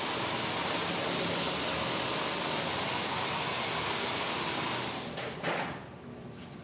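Handheld hair dryer blowing a steady rush of air while drying hair. It cuts off about five seconds in.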